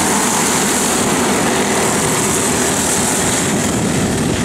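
Engines of several racing go-karts running together at speed as a pack goes around the track, a steady, dense drone.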